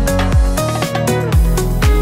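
Background music with a steady beat and plucked melody notes; the bass and beat drop out for a moment about halfway through.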